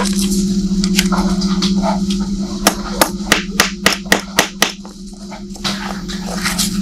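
Hand file rasping against a rusted steel pistol part as the rust is scraped off. About three seconds in comes a quick run of about ten sharp metal clicks, four or five a second, as the tool knocks against the part. A steady low hum runs underneath.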